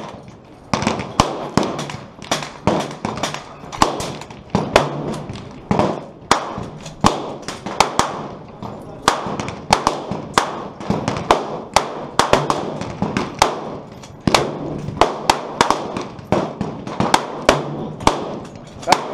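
Gunshots at a shooting range, sharp cracks coming two or three a second at uneven intervals without let-up, each with a short ringing tail.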